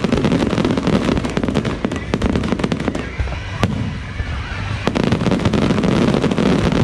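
Fireworks display: rapid volleys of bangs and crackling shells that thin out for a moment about halfway through, then pick up again with a sharp bang.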